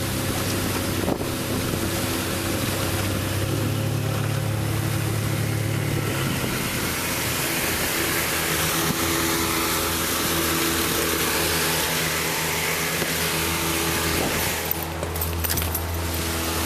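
Small aluminium boat under way at speed: its outboard motor runs steadily under the rush of water along the hull and wind on the microphone. The engine note changes about six seconds in.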